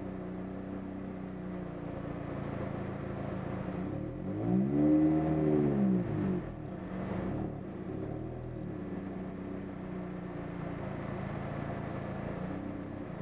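First-generation Mini Cooper's engine idling steadily, heard inside the stripped cabin, with one engine rev rising and falling about four seconds in.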